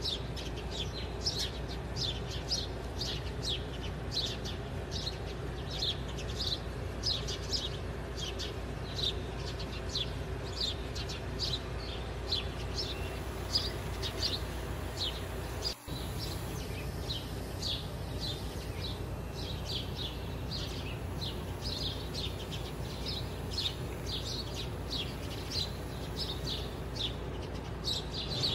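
Small birds chirping, short high chirps about two a second, over a faint steady hum, with a brief break about halfway through.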